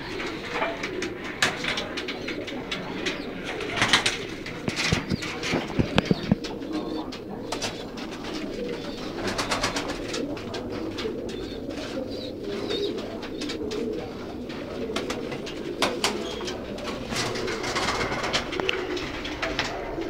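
Many caged tumbler pigeons cooing continuously, overlapping one another, with scattered sharp clicks and knocks, the loudest a few seconds in.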